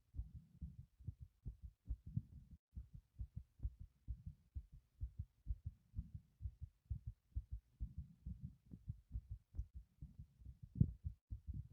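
Human heartbeat heard close up: a steady rhythm of low, dull thuds, the heart pumping hard after the exertion of lifting a heavy object.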